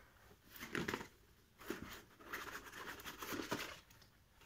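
Packaging being handled as a clear plastic sleeve is slid off a cardboard headphone box: a couple of soft knocks, then faint scraping and rustling.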